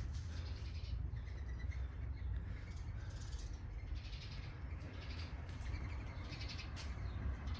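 Birds chirping here and there over a low, steady background rumble.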